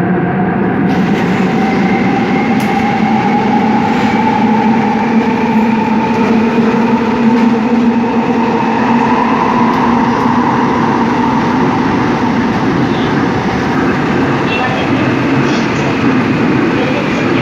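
Seoul Subway Line 5 train running through the tunnel, a loud steady rumble of wheels on rail with the electric traction motors' whine rising slowly in pitch as the train gathers speed, then holding.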